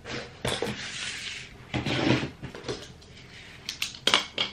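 Things being handled and moved about on a desk: rustling, then a few sharp clicks and knocks near the end.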